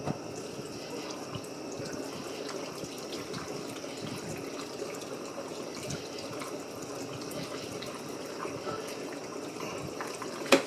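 A steady rushing noise like liquid running or pouring, with one sharp click near the end.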